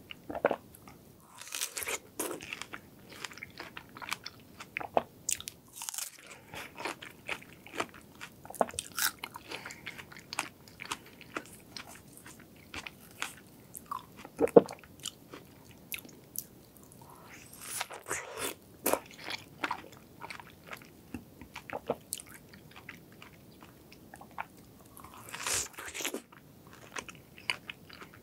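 Close-miked eating of a large King's Berry strawberry: bites into the juicy fruit and wet chewing, with many small mouth clicks and a few longer, louder bites.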